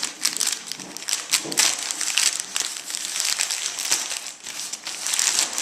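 Thin plastic mailing bag crinkling as it is cut open along one side with scissors and handled, a dense run of crackles.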